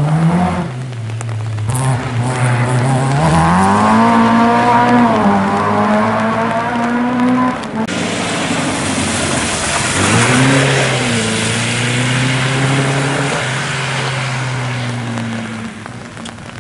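Rally cars at full speed on a wet stage. One engine revs hard, rising in pitch, then breaks off. A second car's engine comes in, dips and holds at high revs, then fades, over a steady hiss of heavy rain and tyre spray on the soaked tarmac.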